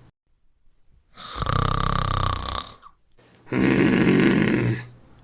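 A man snoring loudly in two long breaths. The first, about a second in, carries a high whistling tone. The second, near the end, is a rough, rasping snore.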